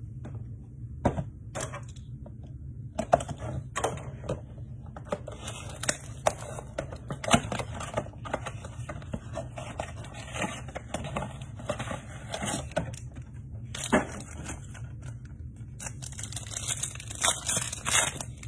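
Cardboard blaster box of 2022 Elite football cards being opened by hand and a foil card pack pulled out and torn open: a run of irregular clicks, cardboard flaps bending, and wrapper crinkling, busier and louder near the end.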